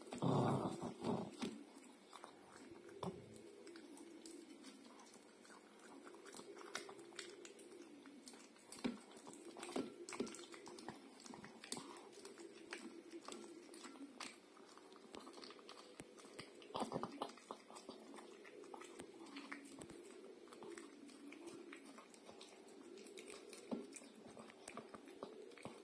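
A Biewer terrier eating wet pâté dog food from a glass bowl: wet chewing and licking with scattered short clicks, loudest near the start and again about two-thirds of the way through.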